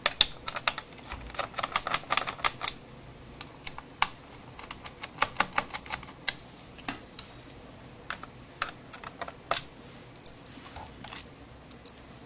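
Irregular runs of quick, sharp clicks and taps, thinning out toward the end: a screwdriver working out the small screws on the underside of an HP Pavilion dv6000 laptop.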